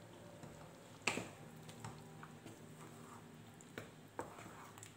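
Fried chicken pieces being added to the gravy in the pot: a few soft knocks and clicks from the spoon and bowl, with wet squelches, the sharpest about a second in.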